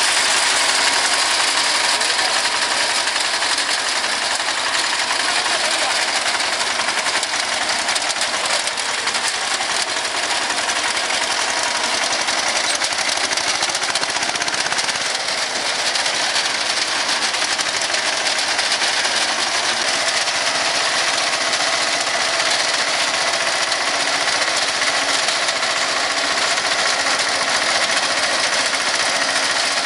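Tractor engine running with a tractor-mounted reaper working, a loud, steady mechanical noise with no letup.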